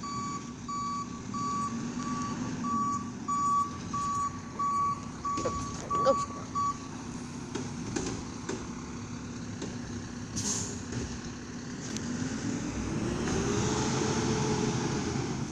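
Garbage truck backing up with its reversing alarm beeping steadily over the diesel engine's hum. The beeping stops about seven seconds in, a short air-brake hiss follows a few seconds later, and near the end the engine revs up and settles back.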